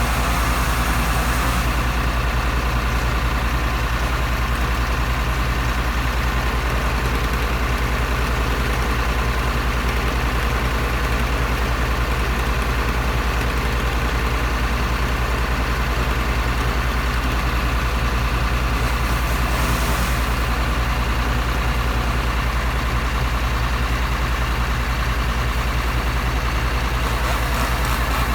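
Heavy engine idling steadily, a constant low drone that holds without change.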